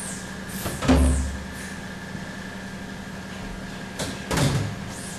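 Scouring scrub brush working degreaser into a screen-printing screen's mesh, with two louder scraping knocks, about a second in and near the end, over a steady hum.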